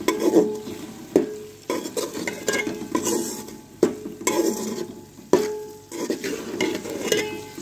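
A metal spatula stirring spiced onion-tomato masala as it fries in a metal cooking pot. The frying sizzle mixes with scraping, and sharp knocks of the spatula on the pot ring briefly, about once a second.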